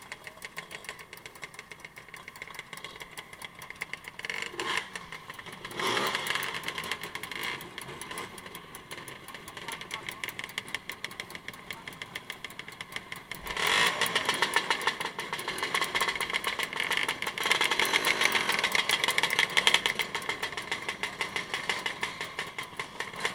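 Motorcycle engine running continuously with a fast, even firing pulse. It swells louder several times: about six seconds in, again around fourteen seconds, and for a few seconds from about seventeen seconds.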